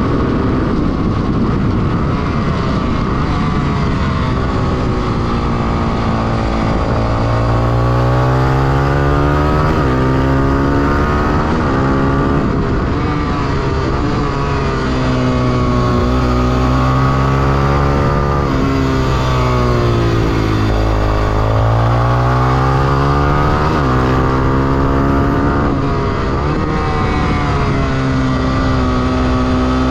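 Honda XR250 Tornado supermoto's single-cylinder four-stroke engine under hard riding on a track. The revs fall away into corners and climb again on the exits several times, with wind noise over an onboard microphone.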